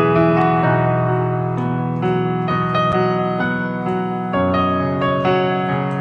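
Piano playing a slow instrumental passage: sustained chords under a melody, with new notes struck about every half second and the bass note changing near the end.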